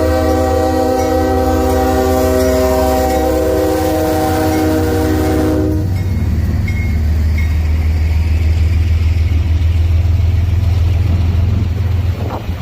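Locomotive multi-chime air horn sounding one long, held chord that cuts off about six seconds in. The deep running rumble of the train continues underneath and after it.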